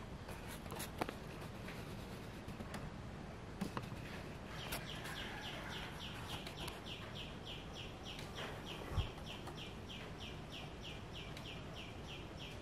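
A bird chirping over and over in quick short falling notes, about three or four a second, starting about five seconds in. Faint background noise with a few light knocks, including a low thump about nine seconds in.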